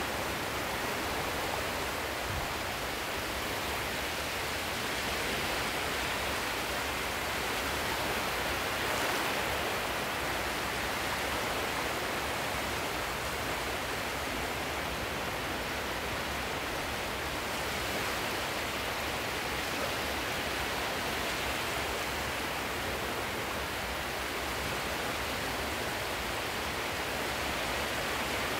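Steady rushing of sea surf, swelling and easing slowly every several seconds.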